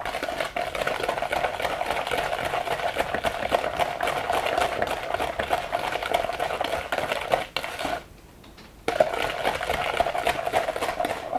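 Hand whisk beating egg yolks and sugar in a plastic mixing bowl: a fast, steady scraping and clicking that stops for about a second near the end, then starts again.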